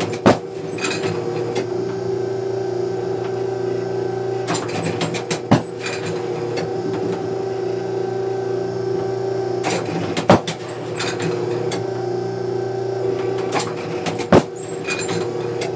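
Automatic clay-target trap machine cycling through a round of trap: a steady hum with four sharp bangs about four to five seconds apart, each set among a short clatter of the mechanism.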